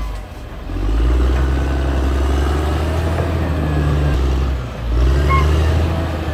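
Caterpillar D6R XL bulldozer's diesel engine running hard, its level dipping briefly about half a second in and again near five seconds, with a short beep just after the second dip.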